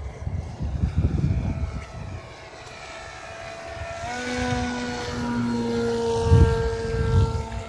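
Small electric motor and propeller of a foam-board RC plane in flight, a steady whine that shifts pitch a few times. Low rumbling bumps on the microphone near the start and twice near the end are the loudest sounds.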